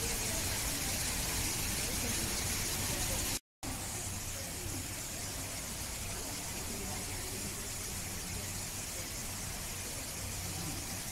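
Faint, indistinct human voices over a steady hiss and low hum. The sound drops out completely for a moment about three and a half seconds in.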